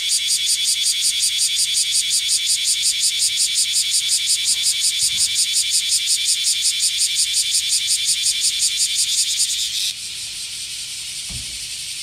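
Black cicada (kumazemi, Cryptotympana facialis) singing loudly: a harsh, rapidly pulsing high buzz. At about ten seconds the pulsing stops, leaving a quieter steady buzz.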